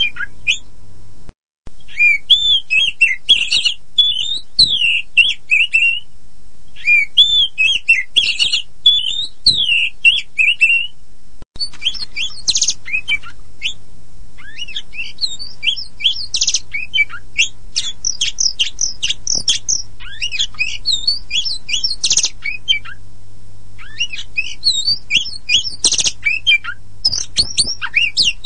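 Oriental magpie-robin (kacer poci) singing loudly. Varied flowing whistled phrases give way, about halfway through, to a fast run of high chirps and trills. The recording cuts out briefly twice, and a faint steady hum lies underneath.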